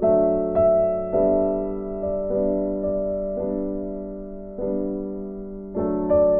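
Background piano music: a slow melody of single struck notes over sustained chords, each note fading after it is played.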